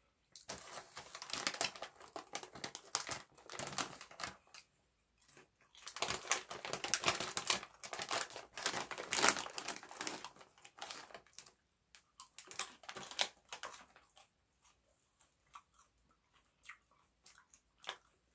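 Plastic snack bag crinkling and rustling as it is handled. The crackle is dense for about the first ten seconds, thins to scattered bursts, and dies down to a few faint clicks near the end.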